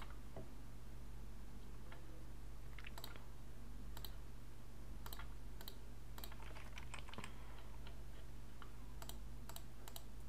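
Scattered clicks of a computer mouse and keyboard, singly and in small quick runs, over a steady low electrical hum.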